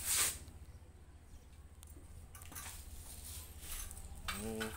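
Faint, scattered clinks of metal tools and suspension parts being handled on a concrete floor, over a low steady hum, with a brief loud rustle at the very start.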